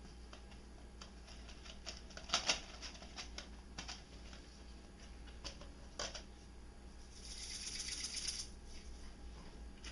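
Light clicks and taps of small objects being handled on a shelf, the loudest a quick double knock about two and a half seconds in, followed by a short hissing rustle near the eight-second mark.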